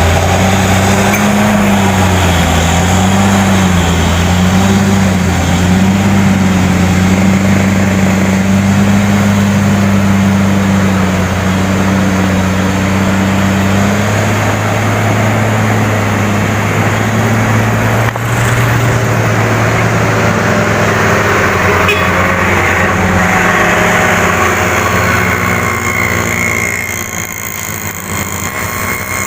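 Large diesel bus engine running close by with a low, steady hum whose pitch wavers for the first dozen seconds and then holds level. There is one short knock about 18 seconds in.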